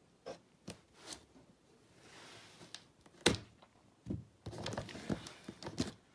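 Gift packaging being handled and opened: paper crinkling and tearing, with a few light clicks, one sharp knock about three seconds in, and a burst of crackling rustle in the last second and a half.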